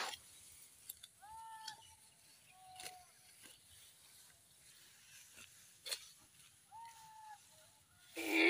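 Faint short animal calls, bleat-like, twice, each a brief bent tone, with a louder call at the very end. Light clicks and rustling from a net cloth being handled and dragged over cut grass stubble.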